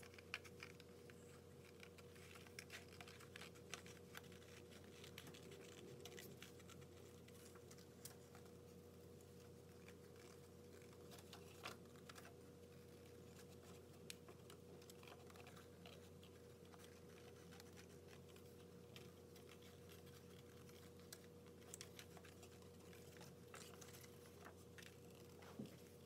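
Faint snipping of scissors cutting through paper: many small irregular clicks over a steady low hum.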